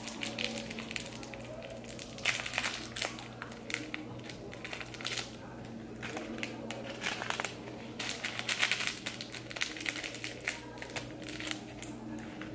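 Plastic packaging crinkling and crackling as it is handled and opened by hand, in irregular bouts with short pauses between them.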